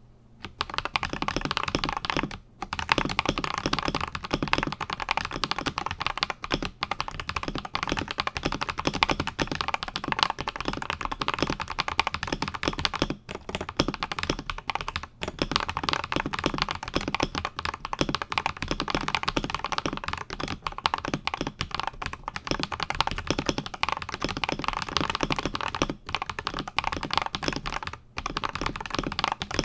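Fast, continuous typing on an Akko 5075S mechanical keyboard with Akko Vintage White linear switches lubed with Krytox 205g0, mounted on a polycarbonate plate. It is a dense stream of keystrokes broken by a few brief pauses.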